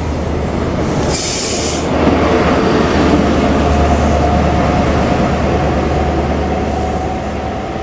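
CrossCountry HST power car 43301 passing and pulling away: its MTU diesel engine gives a steady low drone over wheel and rail noise, with a short hiss about a second in. It is loudest as the power car goes by about two seconds in, then fades as the train moves off.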